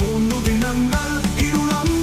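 Background music with a steady drum beat and a sustained bass line.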